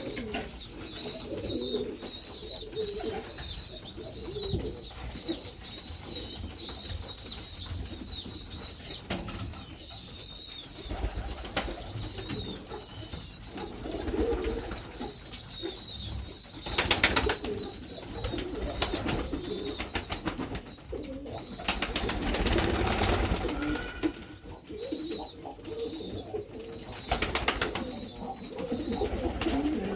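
Domestic pigeons cooing, over a continuous high-pitched twittering of other birds. Several brief loud rustling bursts come in the second half.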